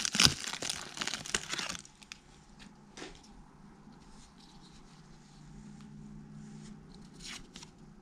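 Foil wrapper of a football card pack being torn open and crinkled, loud for about the first two seconds. It then goes quiet apart from a few faint taps as the cards are handled.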